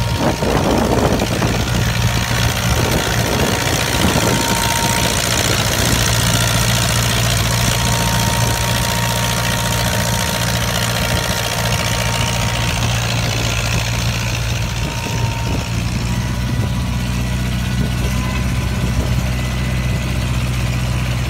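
Tractor engine running steadily under load as it works a turf-cutting machine, an even low hum with no change in speed.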